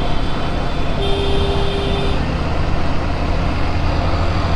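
Motorcycle riding in traffic, its engine and road noise a steady low rumble. A horn sounds once, held for about a second, starting about a second in.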